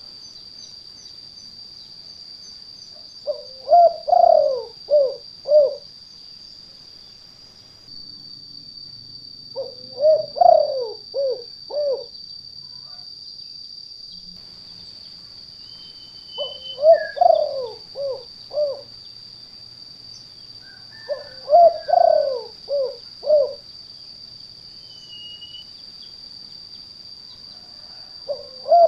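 Spotted dove cooing: a phrase of several quick low coos repeated about every six seconds, five times, with the last one starting right at the end. A steady high-pitched whine runs underneath throughout.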